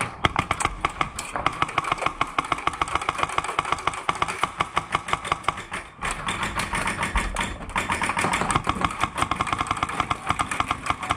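Airsoft guns firing in rapid, sustained strings: a fast run of sharp clicking shots, several a second, that barely lets up, with short pauses about six and eight seconds in.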